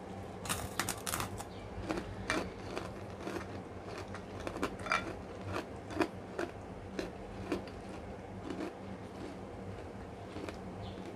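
Crunching bites of a kerupuk cracker, a cluster of sharp crackles about half a second in, then steady chewing with small mouth clicks and smacks for several seconds.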